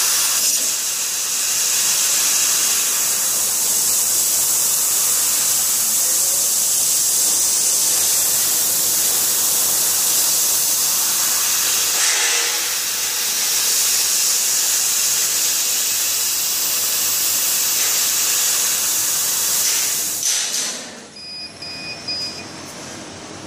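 CO2 laser cutter cutting steel plate: a loud, steady hiss of assist gas jetting from the cutting nozzle. The hiss falls away about twenty seconds in, leaving quieter machine noise and a faint, high, on-and-off tone.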